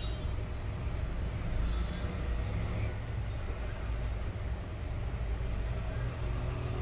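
Steady low rumble of background noise.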